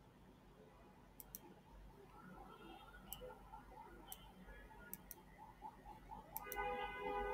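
Several faint computer mouse clicks, some in quick pairs, as the cursor works the screen. Near the end a faint sustained sound with several steady pitches comes in.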